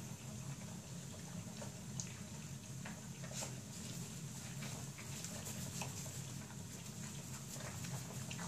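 Whippet puppies eating together from a shared bowl: scattered small wet licks and clicks over a steady low hum.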